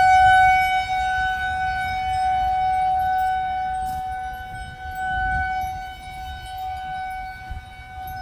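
Outdoor tornado warning siren sounding one steady pitch, loud at first and gradually fading, swelling again briefly about five seconds in.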